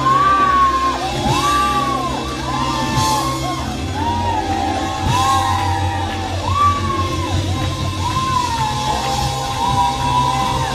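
Loud gospel praise music over a steady bass line, with a voice calling out long held notes that fall off at the end, one after another about once a second, echoing in a large hall.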